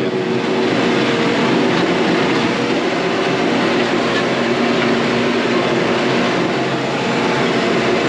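Farm tractor engine running steadily under load while pulling a disc harrow, with the constant noise of the discs working the ground. The disc is fairly quiet, a sign of deep soil that is not very rocky.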